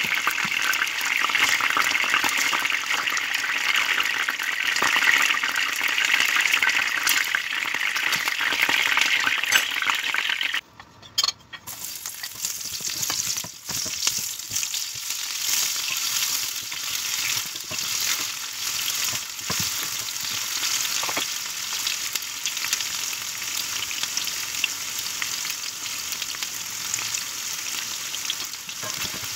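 Chicken wings frying in hot oil, a steady dense sizzle. After a brief drop about ten seconds in, garlic and then sliced onions sizzle in oil with a higher, hissier sound as a wooden spatula stirs them.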